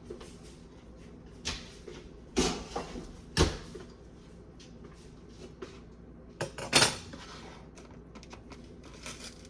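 Dishes and utensils being handled: a handful of sharp knocks and clatters with lighter taps between. The loudest knock comes about a third of the way in, and a quick double clatter comes about two-thirds in.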